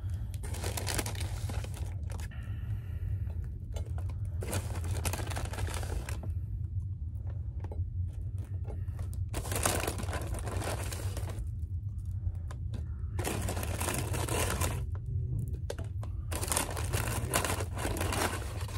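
Paper fast-food bag being handled and crinkled in about five bursts of one to two seconds each, over a steady low hum.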